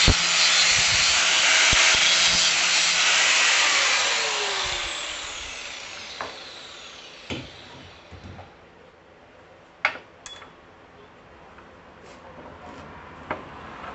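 Craftsman angle grinder cutting through a steel rod clamped in a vise, then switched off about four seconds in and winding down with a falling whine. A few sharp metal clinks and knocks follow as the grinder is set down and the cut piece is handled.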